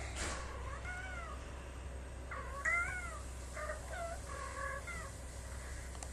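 A cat meowing, four or five short calls that rise and fall in pitch, over a steady low hum.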